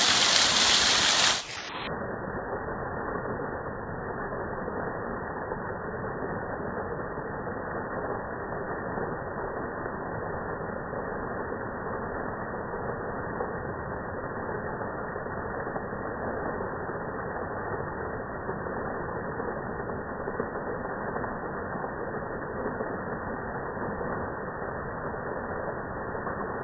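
A waterfall's water rushing steadily. For about the first second and a half it is louder and full-range, then it turns muffled, with the high end cut away, and runs on evenly.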